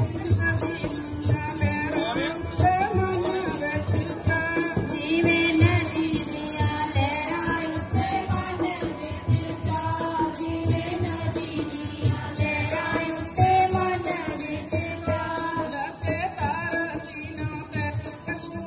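Devotional hymn singing over a dholak drum beating a steady rhythm, with jingling percussion keeping time on the beat.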